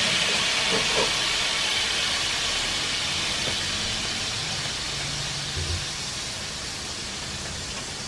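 Water hissing into steam on the hot griddle plate of a gas grill, under a glass lid over green asparagus. The hiss slowly dies down as the water boils off.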